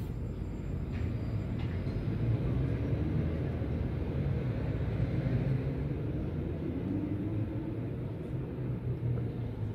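Tram running, a steady low rumble that grows louder about two seconds in.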